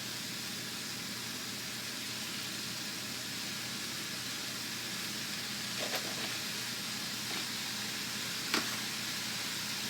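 Ground beef sizzling as it browns in a pot, a steady hiss, with two light knocks about six and eight and a half seconds in.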